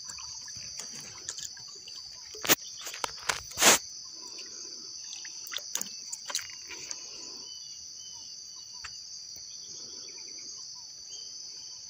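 A steady, high insect chorus of crickets or similar insects buzzing continuously. A couple of sharp knocks sound in the first four seconds.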